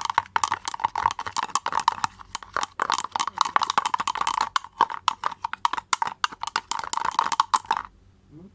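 Rapid scraping and clicking of a utensil stirring glue and food colouring in a small container, stopping suddenly near the end.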